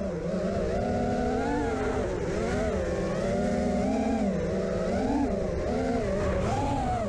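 T-Motor F80 2500kv brushless motors spinning butter-cutter props on an FPV quadcopter in flight: a steady whine whose pitch rises and falls continuously with throttle. The pilot puts part of the noise down to the radio antenna bending down into the props.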